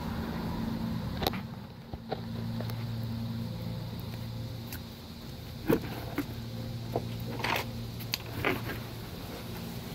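Scattered metallic clicks and knocks from hands and parts on an exposed rear drum brake assembly (shoes and springs), the sharpest about six seconds in, over a steady low hum.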